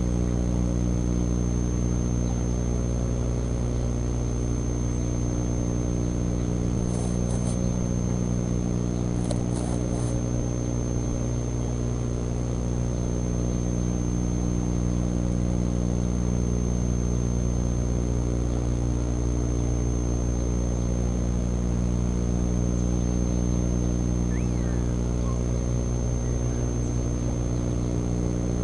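Steady low drone made of several held tones, with a constant thin high whine above it, unchanging in pitch and loudness throughout.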